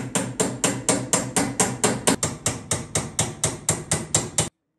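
Hand hammer striking the aluminium capping rail and rivets of a Land Rover Series IIA rear tub: rapid, evenly spaced metal blows, about four to five a second, each ringing briefly, that stop abruptly near the end.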